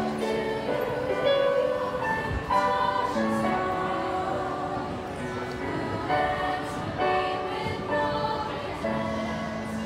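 Junior high school choir singing in harmony, young voices holding notes and moving together from one chord to the next.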